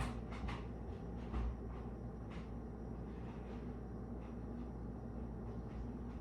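A few faint, short clicks and knocks of things being handled, over a steady low hum.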